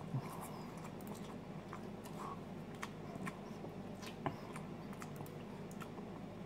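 Quiet eating of instant cup noodles: soft chewing and noodles being drawn in, with scattered small clicks of a metal fork against the cup.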